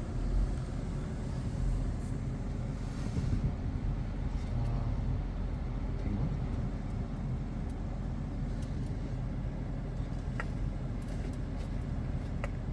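Steady low rumble of road and tyre noise heard inside a moving car's cabin, with a couple of light clicks near the end.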